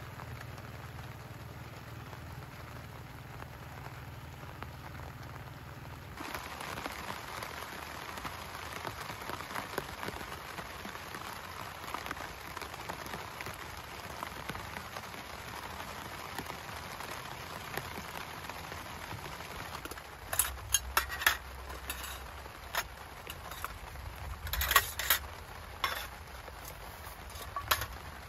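Steady rain, getting louder from about six seconds in, with several sharp knocks in the last eight seconds.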